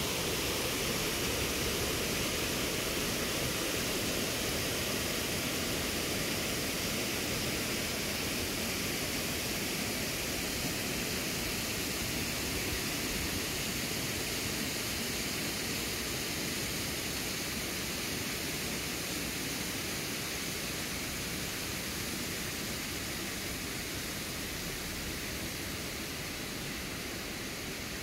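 Steady rushing noise with no distinct events, slowly fading toward the end.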